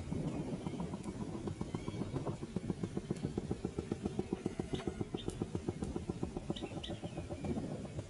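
A small engine running with a rapid, even chugging. A few short, high bird calls sound over it in the second half.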